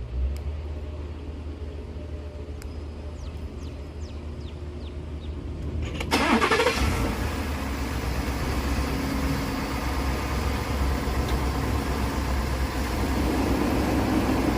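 Ford F-series pickup engine starting about six seconds in, then running steadily; before it starts there is only a low steady rumble with a few faint high chirps.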